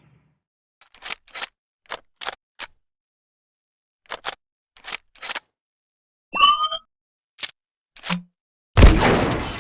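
Star Wars clone blaster sound effects: groups of short, sharp electronic clicks and snaps, and a brief zap with a gliding pitch about six and a half seconds in. One loud blaster shot comes about nine seconds in and trails off.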